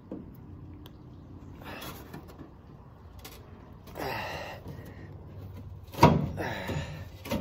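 Inner cover panel of a 1989 Ford Bronco tailgate being pulled loose by hand: a few scrapes, then a sharp loud crack about six seconds in as it comes free, followed by more scraping. The panel sticks where the tailgate was bed-lined, so it comes off a little touchy.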